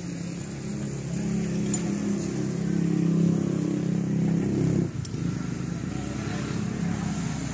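A machine running with a steady low drone, which dips briefly about five seconds in and then carries on.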